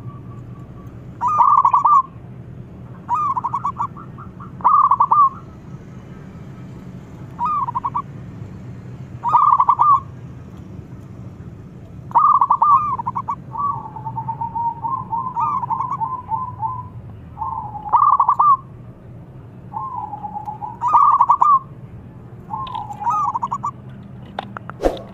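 Zebra dove cooing in song: about ten rolling, rapidly pulsed coo phrases, repeated every one to three seconds. Some phrases open with a quieter, lower trill before the louder burst. A steady low hum runs underneath.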